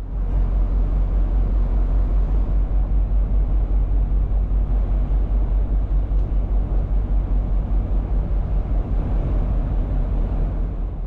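Ferry's diesel engines heard on board: a deep, steady rumble with a fast, even throb, fading away at the very end.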